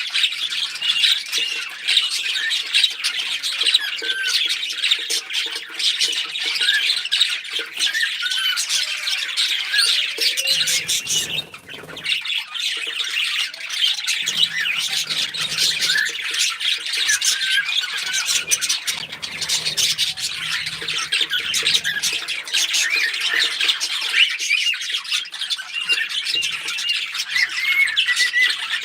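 A flock of small pet parrots, budgies and cockatiels, chirping and chattering continuously in dense, overlapping calls. There is a brief lull about eleven seconds in.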